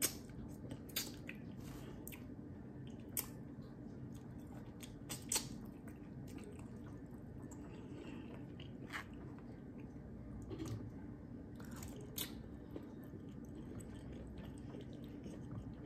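Person eating close to the microphone: wet, squishy chewing with a dozen or so short sharp mouth smacks and clicks spread through, over a steady low hum.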